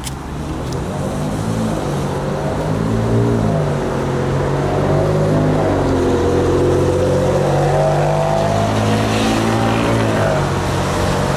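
Street traffic with a motor vehicle engine running close by, its pitch slowly rising and falling as it changes speed.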